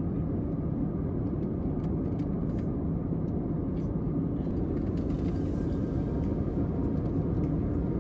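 Steady cabin noise of a jet airliner in flight, a constant low rush of engines and airflow heard from a window seat.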